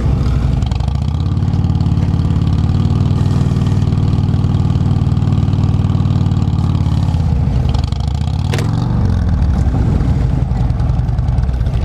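Police touring motorcycle engine running close by at low, steady revs as the bike is ridden slowly through tight cone turns. The engine eases off near eight seconds, with a single sharp click about half a second later.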